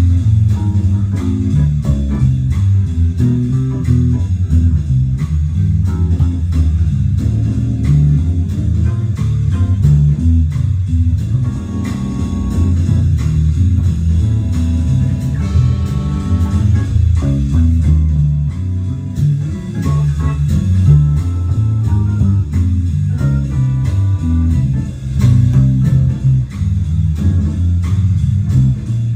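Music led by bass guitar, with plucked guitar notes over a steady beat.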